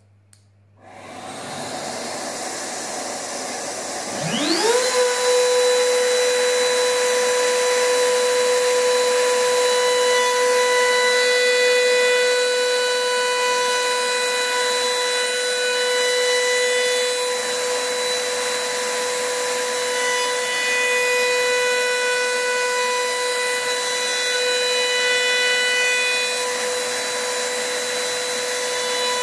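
Makita RTC0700C compact router mounted under a router-table insert plate, spinning up with a quickly rising whine about four seconds in and then running at a steady high whine while a block is fed past its bearing-guided bit. A steady rushing noise starts about a second in, before the motor comes up to speed.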